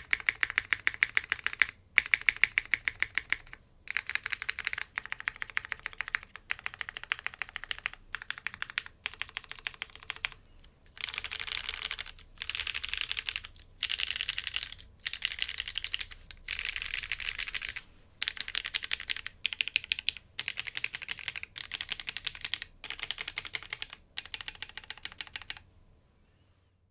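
Mechanical keyboard typing on a JJW Cloudline with lubed vintage Cherry MX Black linear switches in a polypropylene plate, top-mounted, with GMK keycaps. The keys are typed in bursts of rapid keystrokes separated by short pauses, and the typing stops near the end.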